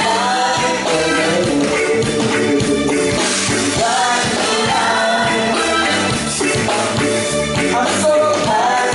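Live band music with a vocalist singing over a steady beat.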